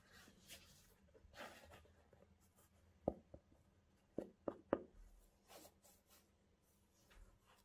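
Quiet rubbing and rustling of cotton gloves handling a pair of Nike Air Max Tailwind V sneakers, with a sharp knock about three seconds in and three quick knocks just after four seconds.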